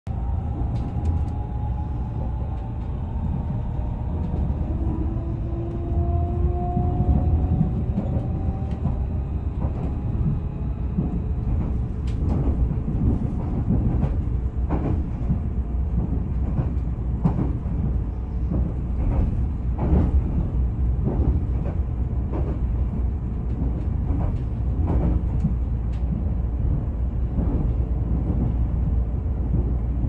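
Passenger train heard from inside the carriage: the steady low rumble of wheels and running gear on the track. A faint rising whine runs through the first several seconds, and from about halfway on there are regular clacks roughly once a second.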